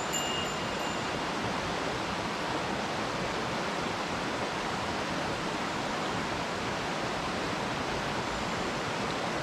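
Steady rush of a small mountain stream running over rocks, with a faint high thin tone in the first second.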